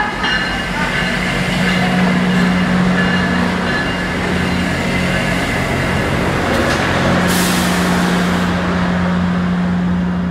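GO Transit F59PH diesel locomotive and bilevel coaches rolling past, the locomotive's engine a steady drone over the rumble of the train. About seven seconds in there is a short burst of hiss.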